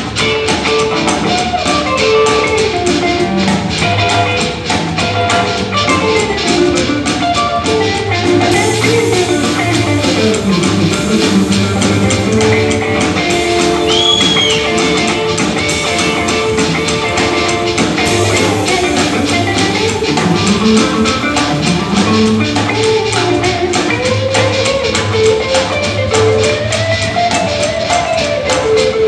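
Live blues band playing: amplified harmonica leading with sliding, bent notes over hollow-body electric guitar, upright bass and a drum kit keeping a steady beat.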